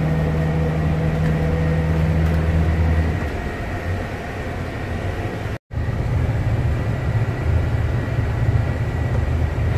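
Shuttle minibus engine running, heard from inside the cabin as a steady low drone with road noise. The sound drops out for an instant just past halfway, then comes back with the engine at a different pitch.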